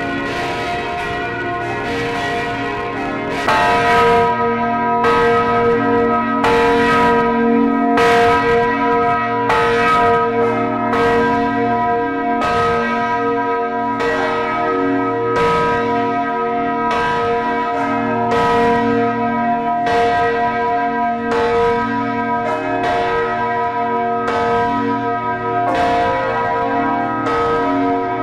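Several large church bells swinging and ringing together. Their strikes come about once or twice a second and overlap in a continuous ring. A few seconds in the ringing grows louder as a deeper note joins.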